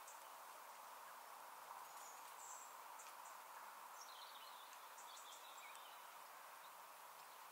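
Very faint open-countryside ambience: a steady even hiss, with a few short, high bird chirps and calls scattered through the middle.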